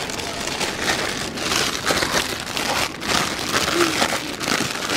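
Clear cellophane treat bag crinkling and crackling in the hands as it is wrapped and twisted closed around a dog bone treat.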